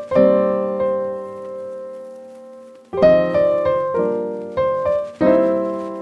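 Background piano music: a chord rings and slowly fades, then a fresh run of notes comes in about three seconds in.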